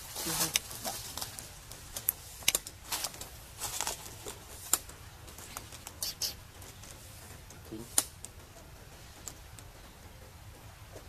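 Irregular sharp clicks and crackles, thick in the first few seconds and thinning out after about eight seconds.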